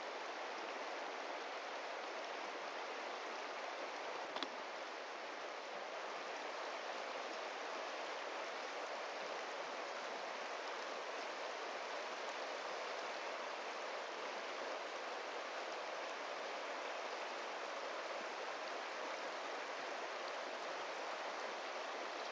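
A shallow mountain river running over rounded cobbles and small riffles, a steady even rush of water. A single short click about four seconds in.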